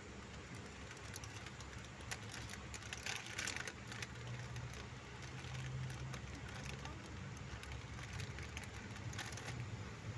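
Passenger train pulling slowly out, heard from on board: a steady low rumble with scattered light clicks and rattles, and a brief hiss about three seconds in.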